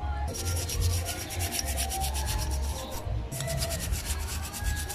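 A toothbrush scrubbed rapidly back and forth over a motorcycle brake caliper bracket (the brake pad holder), about nine scratchy strokes a second, to get off the clinging dirt. There is a brief pause about three seconds in.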